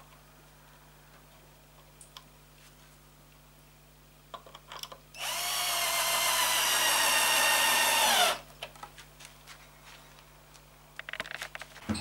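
Cordless drill-driver driving a screw into pine for about three seconds, its motor whine rising briefly at the start, holding steady, then dropping in pitch as it stops. A few light knocks of wood before and after.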